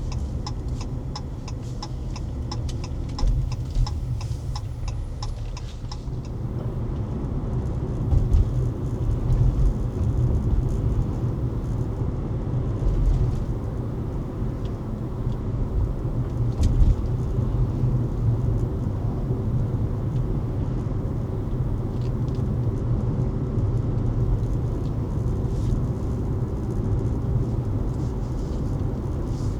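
Car driving, a steady low road rumble with a regular ticking over the first six seconds or so.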